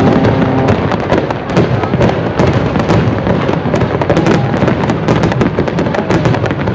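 Aerial fireworks going off in quick succession: a dense, continuous crackle of many sharp, overlapping pops and bangs.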